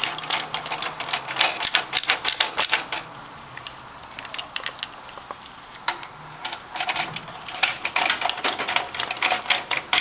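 Rapid metallic clicking and rattling of a screwdriver driving motherboard screws into the brass standoffs of a steel PC case, in two busy spells with a quieter gap of about three seconds between them.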